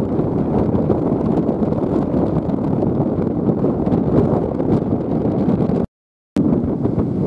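Strong wind buffeting the camera microphone, a steady low rumbling roar. It drops out completely for about half a second a little before the end.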